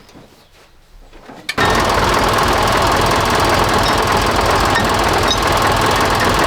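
A loud machine starts abruptly about a second and a half in and runs steadily with a fast, even chugging pulse.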